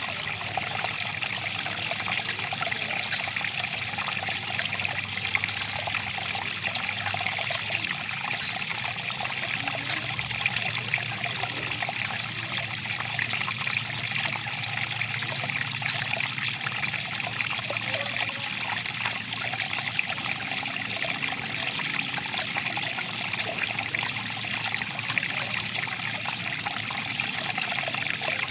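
Stream water flowing and trickling steadily, an even splashing rush with no pauses.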